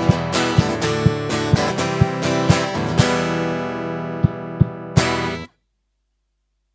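Acoustic guitar strummed over a Finhol Stompcon stomp box beating a steady pulse about twice a second. About three seconds in the chord is left to ring under a few last hits, then everything cuts off suddenly.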